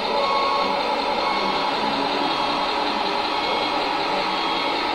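Radio-controlled scale truck running, a steady whirring with no pauses.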